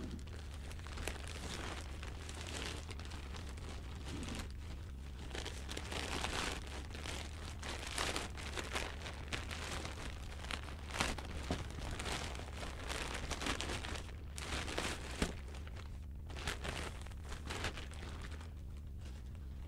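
Crinkling and rustling of a silver plastic package as it is handled and pulled open, in many small irregular crackles. A steady low hum runs underneath.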